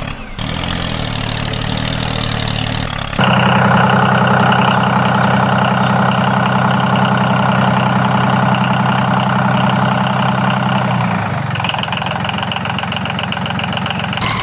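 Small engine of a DIY miniature bulldozer running steadily. It gets abruptly louder about three seconds in, and its tone shifts near the end.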